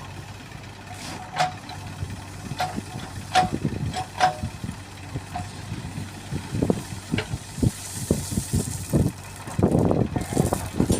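Diesel engine of heavy machinery running steadily, with a few sharp metallic clanks in the first half and a run of irregular knocks and thuds in the second half, loudest near the end.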